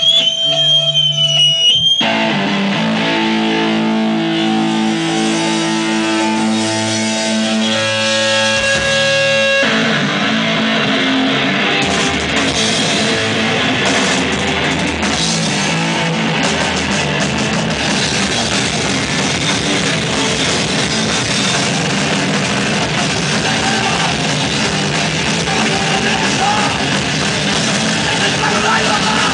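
Hardcore punk band playing live: electric guitar rings out held chords, then about ten seconds in the full band comes in with fast distorted guitar, bass and drums.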